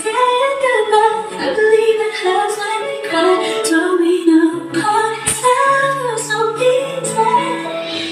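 A pop song with a woman singing over a steady bass line, played loud through the stereo amplifier's speakers from a Bluetooth decoder module: the module is receiving and playing properly.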